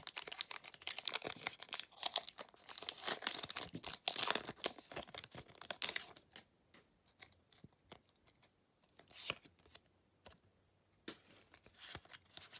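Foil booster-pack wrapper being torn open and crinkled, a dense crackle for about the first half. It then thins out to scattered light clicks and rustles as the cards are handled.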